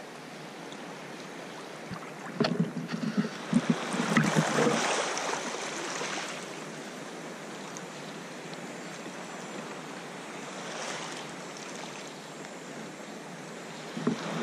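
Sea kayak paddling on choppy salt water: water lapping and splashing against the hull and paddle, with wind on the microphone. A louder, splashier stretch comes about two to six seconds in, and another near the end.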